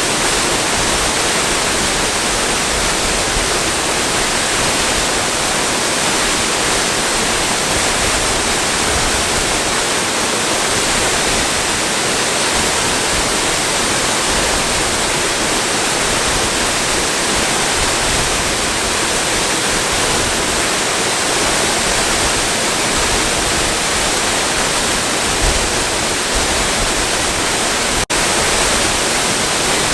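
Waterfall rushing in a steady, even roar of falling water, with one brief click about two seconds before the end.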